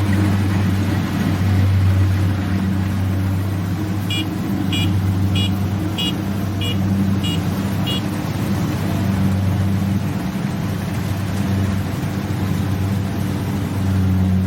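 Rice combine harvester's engine running steadily with a low hum. About four seconds in, a warning beeper sounds seven short high beeps, roughly two-thirds of a second apart.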